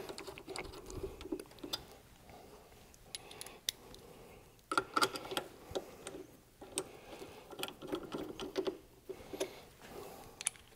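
Faint metallic clicking and ticking of steel M8 bolts being spun in by hand into an exhaust hanger clamp bracket, in irregular clusters of small clicks.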